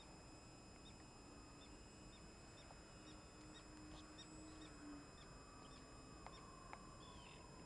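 Near silence. The faint hum of a scratch-built RC Short S.23 Empire flying boat's brushless electric motors and propellers passes at a distance and slowly falls in pitch. Over it a bird gives short high chirps that repeat evenly.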